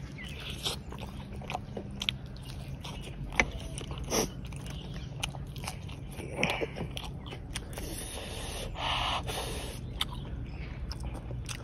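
Close-up eating sounds: biting and chewing pieces of chicken masala, with many short sharp mouth clicks scattered throughout.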